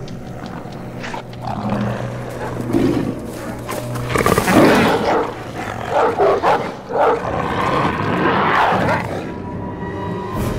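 Film sound effects of a mutant dog snarling and roaring in a run of loud, rough outbursts from about four seconds in, over a film score with a low held note.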